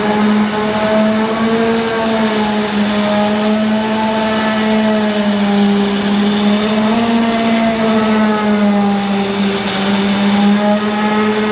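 A machine running with a steady, loud pitched hum whose pitch wavers slightly and slowly.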